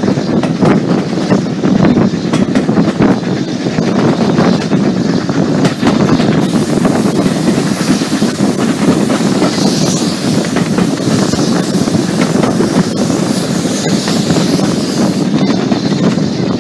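Passenger coach of a steam-hauled train running along the line: a steady rumble and rattle of wheels on rail, with many quick clicks throughout.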